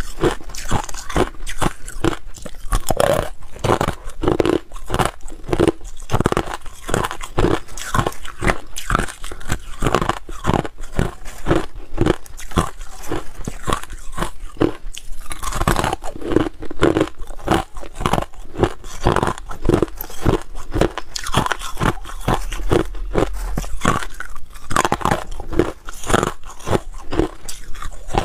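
A person biting and chewing hard crushed ice: a dense, continuous run of sharp crunches, several a second.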